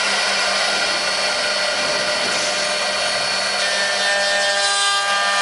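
Eight-spindle 4-axis CNC wood router carving wooden blanks: the router spindles whine steadily, with several held tones over the noise of the bits cutting wood.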